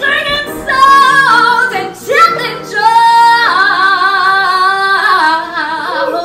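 A woman singing solo into a microphone, holding a long high note with vibrato about halfway through, then a lower held note near the end.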